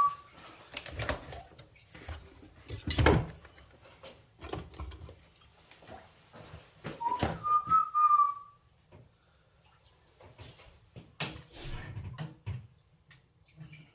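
A man whistling two short phrases, one right at the start and one about seven seconds in. Around them are clicks and knocks of hand tools on metal, the loudest about three seconds in, as screws are taken out of a boiler.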